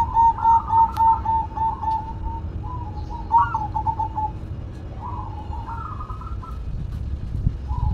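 Zebra dove (perkutut) cooing in fast runs of short repeated notes, about five a second, broken by a few short pauses.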